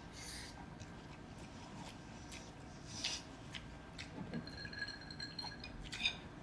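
Faint eating sounds: chewing, with a few light clicks and short scrapes of utensils on dishes.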